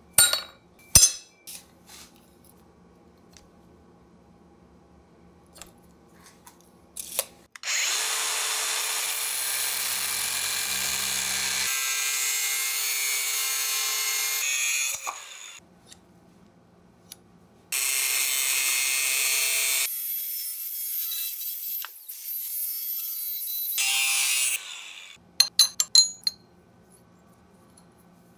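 Angle grinder with an abrasive cut-off wheel cutting through leaf-spring steel clamped in a vise, in two long cuts of several seconds each. Short sharp metallic clinks come before the first cut and after the second.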